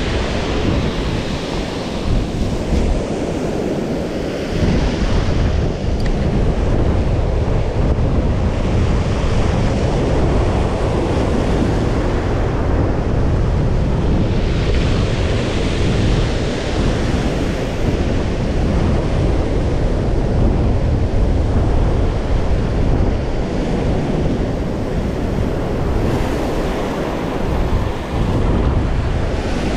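Surf breaking and washing up a pebble beach, swelling and falling as each wave comes in, with wind rumbling on the microphone.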